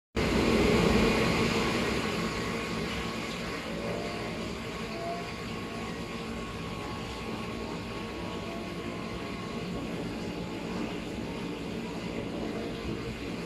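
KRL electric commuter train running along the track, heard from inside the carriage: a steady rumble and rush of wheels on rails, loudest in the first couple of seconds. A faint whine rises in pitch about four seconds in.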